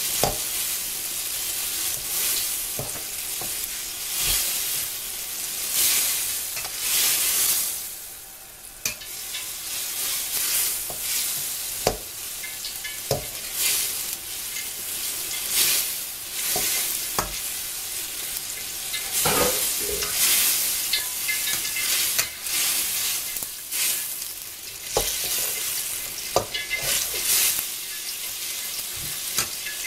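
Tomato and scrambled egg sizzling in oil in a wok while a spatula stirs them, with scattered clicks and scrapes of the spatula against the pan. The sizzle dips briefly about eight seconds in.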